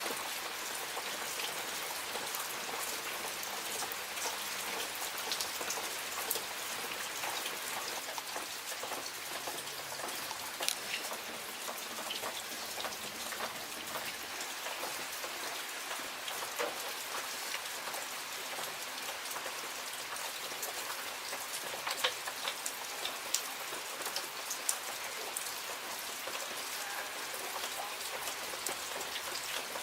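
Steady rain falling on a surface, a constant hiss dotted with many individual drop ticks, a few of them louder than the rest.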